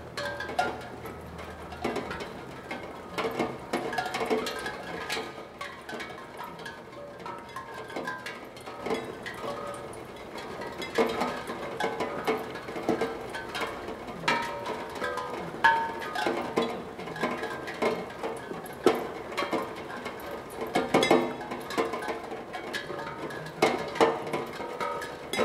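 Raindrops striking a small steel drum (steelpan), sounding its tuned note areas as an irregular scatter of short ringing notes. Some strikes stand out louder, over a light steady patter of rain.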